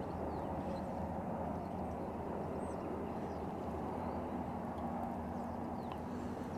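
Steady outdoor wind-and-water noise around a small boat on a lake, with a few faint, short high bird chirps.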